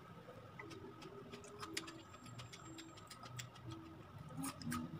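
Close-miked chewing: scattered small wet mouth clicks of someone eating a piece of tomato.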